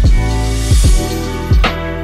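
Background music: sustained chords over a steady kick-drum beat, one hit about every three-quarters of a second.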